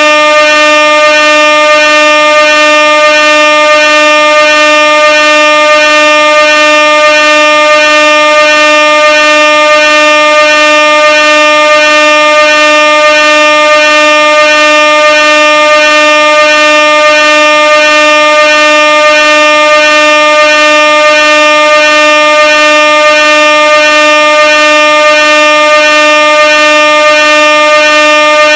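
Air horn blaring very loudly on one steady pitch without a break, its tone pulsing slightly at a regular rate.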